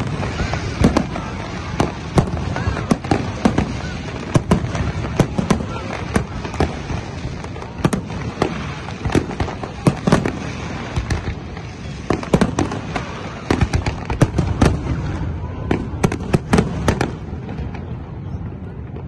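Aerial fireworks display: shells bursting in rapid, irregular bangs, often several a second, over a continuous low rumble.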